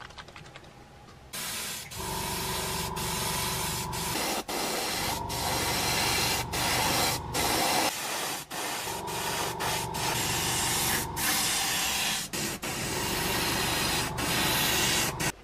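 Airbrush spraying paint: a steady hiss of air, broken by short pauses several times as the trigger is let off, over a steady machine hum.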